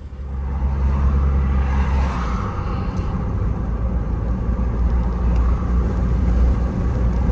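A 2020 SsangYong Rexton Sports' 2.2-litre diesel engine and road noise, heard from inside the cab as a steady low rumble while driving. The engine is pulling weakly and the speed is climbing slowly. This loss of power is a symptom of a fault in its urea (DEF) exhaust-treatment system, with the check-engine light on.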